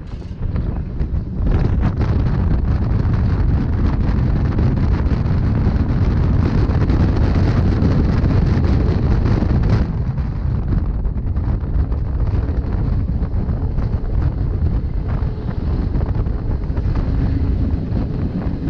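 Rhaetian Railway narrow-gauge passenger train running along the track, a steady rumble of wheels and rails mixed with wind on the microphone. It gets louder about a second and a half in and eases off somewhat about ten seconds in.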